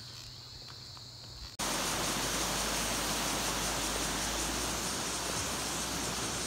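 Faint outdoor ambience with a thin insect buzz. About a second and a half in, it cuts to a loud, steady rushing noise with a low rumble under it.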